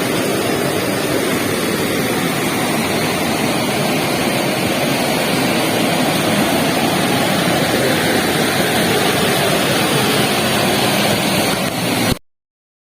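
Waterfall: steady rushing of falling water close to the microphone, cutting off suddenly near the end.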